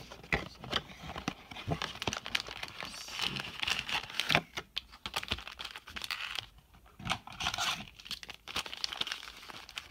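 Clear plastic shrink-wrap being torn and crinkled off a cardboard trading-card box, with irregular crackles and small clicks, then foil card packs being handled and stacked.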